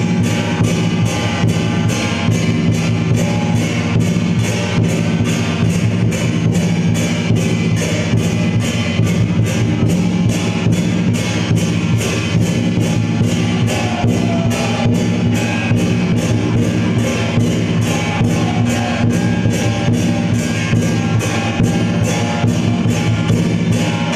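Loud music with a steady drum beat, about three beats a second, over sustained low tones.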